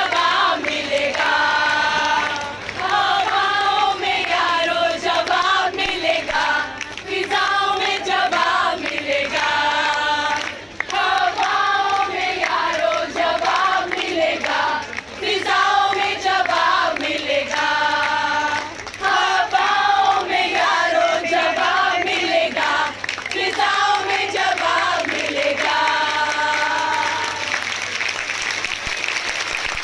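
A group of women singing together in unison, in short repeated phrases with brief breaks between them; the singing stops near the end.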